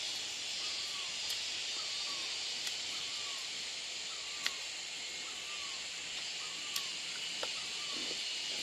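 Steady high-pitched drone of forest insects, with a bird repeating a short down-slurred chirp about every three-quarters of a second and a few faint clicks.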